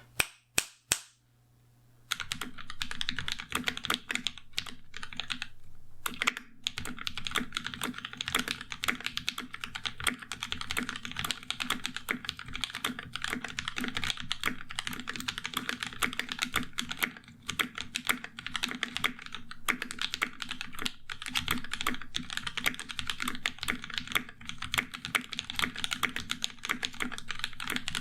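Fast, continuous typing on a 60% custom mechanical keyboard with Alpaca linear switches lubed with Krytox 106 GPL (slightly overlubed) and GMK Striker keycaps on a carbon fibre plate. A few separate keystrokes come first, then dense, unbroken typing from about two seconds in.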